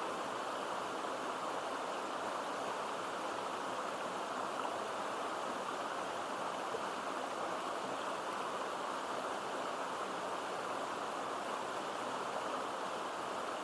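Mountain stream water running steadily, an even, unbroken rush.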